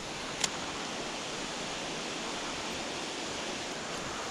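Creek water rushing steadily, with one faint click about half a second in.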